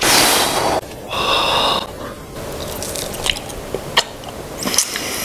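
Chewing and biting on a piece of chicken jerky, with scattered sharp clicks and crackles from the plastic package. A crinkly rush at the very start and a short high-pitched sound about a second in are louder than the chewing.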